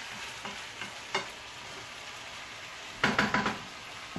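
Beef tibs with onions and tomatoes sizzling steadily in a frying pan, stirred with a wooden spoon. A single knock comes about a second in, and a louder short clatter of spoon knocks and scrapes comes about three seconds in.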